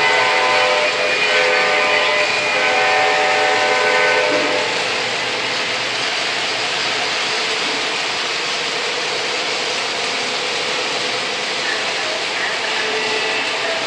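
O gauge model diesel locomotive's electronic horn blowing several blasts over the first four seconds or so, then the steady rumble of the model freight train's wheels rolling on the track.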